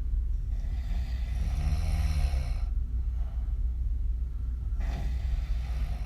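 A woman snoring on her back with her mouth open: one long snore about half a second in, lasting about two seconds, and a shorter, weaker breath near the end, over a steady low rumble.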